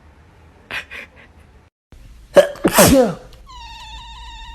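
A loud sneeze about two and a half seconds in. Near the end a long, steady, high-pitched cat meow begins.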